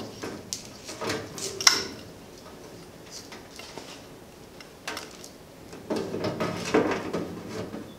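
Handling sounds as a panel-mount neon indicator lamp's wire leads are fed through a hole in a steel cabinet door and the lamp is pressed into the hole. There are a few light clicks and knocks in the first two seconds, then a cluster of rubbing and tapping against the door from about six seconds in.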